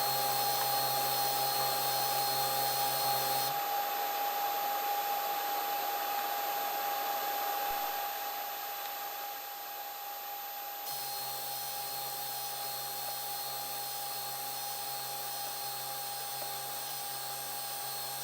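Protomaker Black Sprint FDM 3D printer running: a steady whir with a steady whine above it. A low hum drops out for several seconds partway through, then comes back.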